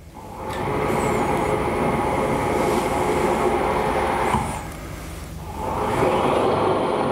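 Electric drive of a bolt friction test bench turning the machine socket to tighten a test bolt, a steady whir of motor and gearing. It eases off about four and a half seconds in and starts again about a second later.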